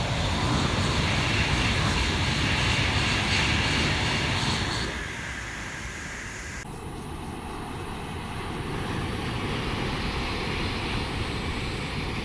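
Taiwan High Speed Rail 700T electric trainset passing at high speed: a loud rushing roar of wheels on rail and air that fades away about five seconds in. A softer rumble from a second passing train rises near the end.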